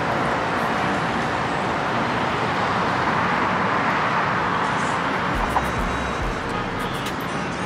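Road traffic noise: a steady rush of passing vehicles that swells to its loudest about three to four seconds in, then eases off.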